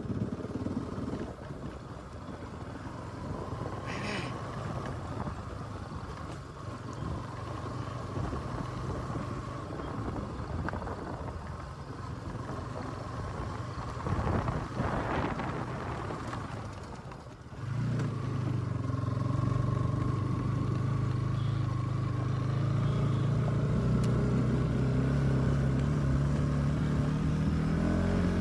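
Bajaj Pulsar NS200 motorcycle engine running under load on a very rough, broken road. About two-thirds through the sound dips briefly, then comes back louder and steadier.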